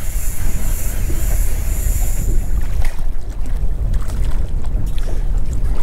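Wind buffeting the microphone with a steady low rumble, while a fishing reel is wound in against a fish. The reel's high whirr stops about two seconds in, leaving a few light clicks.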